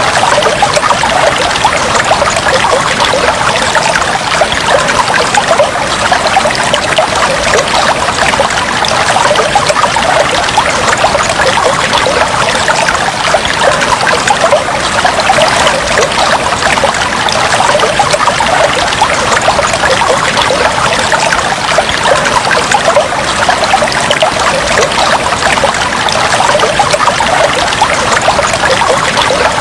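Aquarium water trickling and bubbling steadily, a dense fizz of small splashes and bubbles.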